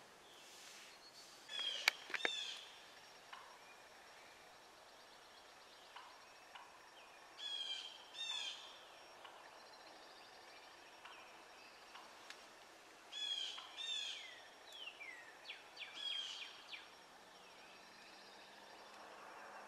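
Songbirds singing in short phrases of quick, high, falling notes, repeated every few seconds over a faint outdoor hiss. A couple of sharp clicks come about two seconds in.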